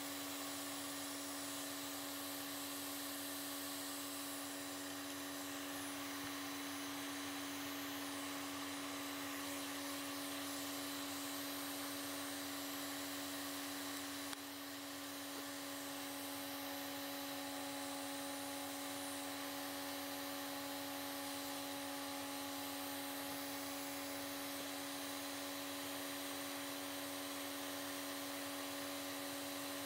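Small electric motor of a homemade vacuum-forming rig running with a steady, unchanging whine.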